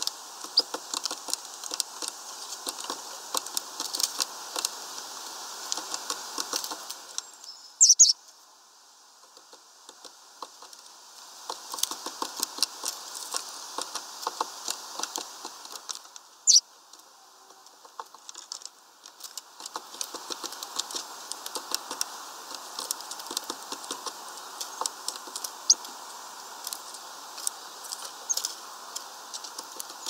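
Small birds pecking and scrabbling among sunflower seeds and husks on a feeder tray: rapid irregular tapping and rustling, which twice drops away for a few seconds. Two short, sharp high sounds stand out, about eight and sixteen seconds in.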